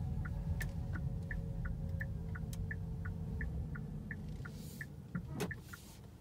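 Kia car's turn-signal indicator ticking in an alternating tick-tock, about three ticks a second, over low road and tyre rumble heard from inside the cabin. The rumble fades as the car slows to pull up on the left, and a single knock comes about five and a half seconds in.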